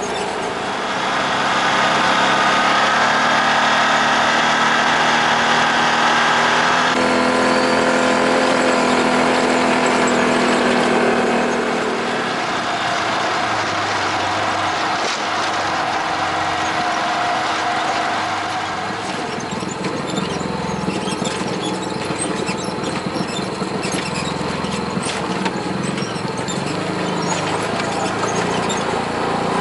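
Off-road vehicle engine running under way, with tyre and trail noise; its pitch shifts a couple of times as the ride changes pace. Frequent small clicks and rattles join in during the second half, from rough dirt trail.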